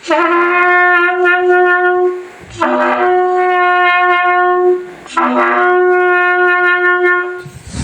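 Trumpet blown with a buzzed embouchure, playing three long held notes at about the same pitch with short breaks between them: a basic first-sound demonstration.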